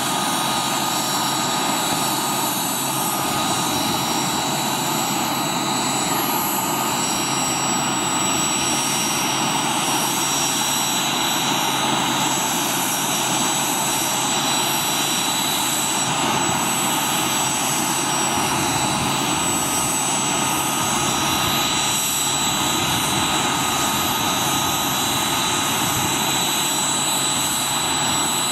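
Chinook helicopter's twin turboshaft engines running on the ground with the rotors turning: a loud, steady turbine whine with several high held tones over a dense rushing noise, holding level throughout.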